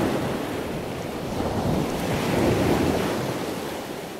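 Ocean waves washing, a steady rush that swells and ebbs twice.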